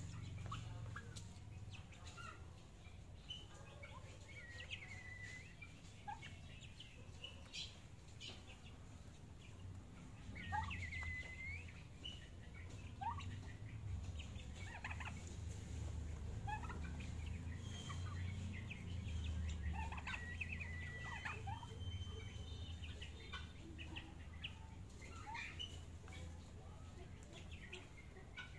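Young turkeys calling while they feed, with short, scattered peeps and whistled notes that rise or fall quickly in pitch, mixed with a few sharp taps, over a low steady hum.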